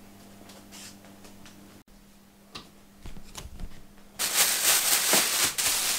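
Soft clicks and knocks of things being handled, then, from about four seconds in, loud crinkling and rustling of a plastic carrier bag being picked up.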